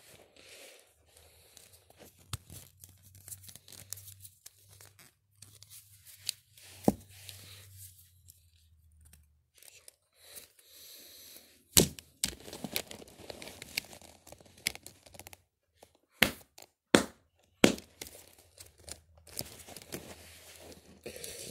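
Plastic wrestling action figures handled close to a phone's microphone: rustling and rubbing, with a low hum through the first half, then several sharp clacks and knocks of the figures in the second half.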